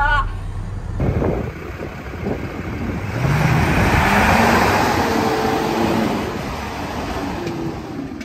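Armored Titan-DS SWAT truck, built on a Dodge Ram, driving by on a paved road: the engine climbs in pitch as it pulls, then a swell of engine and tyre noise peaks about midway and fades as it moves off.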